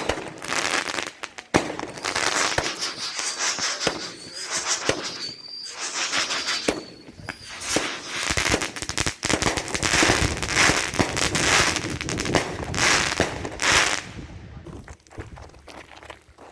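Consumer fireworks going off: a run of sharp bangs with dense crackling between them. A high whistle runs for a few seconds from about three seconds in.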